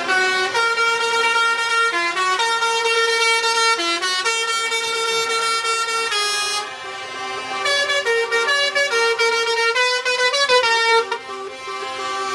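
Truck air horns sounding almost without a break, several notes at once that step from pitch to pitch. The sound dips briefly twice, about six and a half and eleven seconds in.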